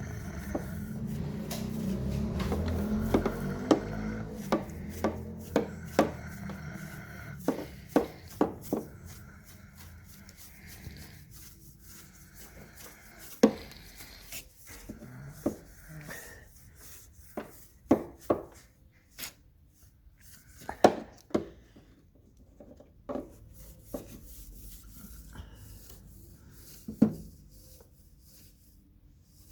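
Irregular clicks, knocks and rubbing of parts and tools being handled, over a low rumble that fades away during the first eight seconds or so.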